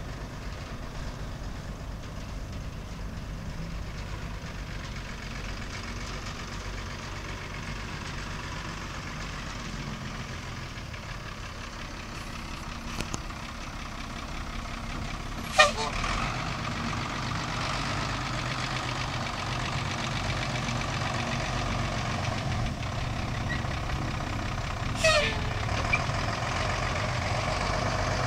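1991 Ford L8000 truck's six-cylinder diesel engine running as the truck drives, growing louder over the second half as it comes closer. Two brief sharp sounds cut through it, about nine seconds apart.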